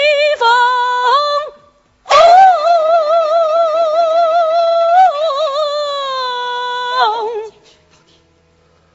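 A woman sings a Suzhou pingtan (tanci) aria. She sings a short phrase, pauses briefly, then holds one long high note with strong vibrato for about five seconds, and its pitch dips slightly as it ends.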